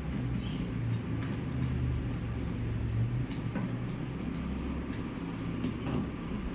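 A steady low mechanical hum with scattered light clicks and taps.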